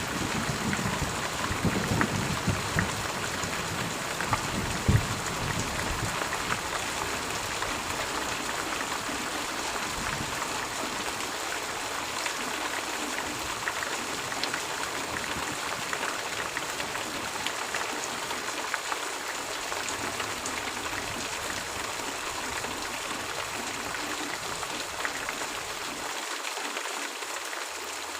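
Steady rain falling, an even hiss with the patter of individual drops. A low rumble fades out over the first few seconds.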